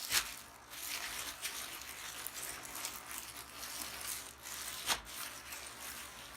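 Rustling and crinkling of packaging and cloth as a pair of tactical trousers is unpacked and handled, with two sharp snaps, one at the start and one about five seconds in.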